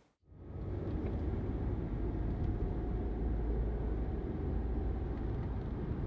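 Steady low rumble of a car driving, fading in within the first half second after a brief silence.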